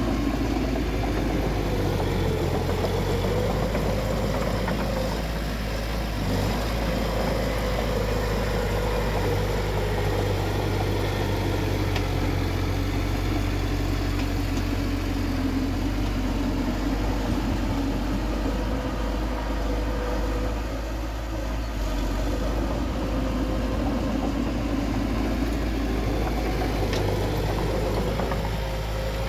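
Bulldozer's diesel engine running steadily under work, its pitch drifting slightly up and down.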